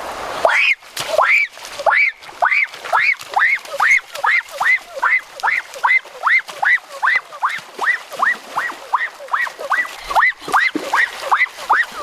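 A rapid, steady series of short squeaky animal calls, each rising then falling in pitch, about two and a half a second.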